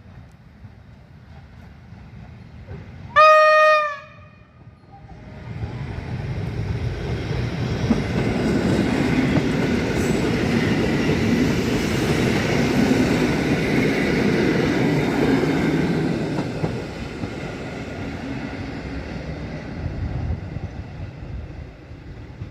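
A train sounds one short horn blast, a single pitched note lasting under a second, as a warning on approaching the level crossing. Then it passes close by: its running noise builds over a couple of seconds, holds for about ten seconds and eases off near the end.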